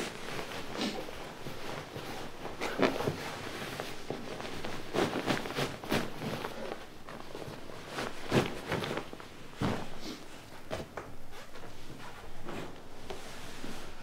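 Scattered rustles and light knocks of handling in a small room, as bed linen is spread out and small objects are picked up.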